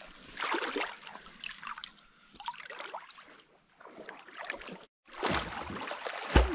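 Lake water splashing and lapping close to the microphone. After a brief dropout about five seconds in, a child's swimming strokes splash louder and closer.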